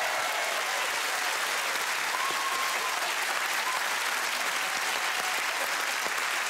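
Studio audience applauding, a steady, dense clapping that keeps an even level throughout.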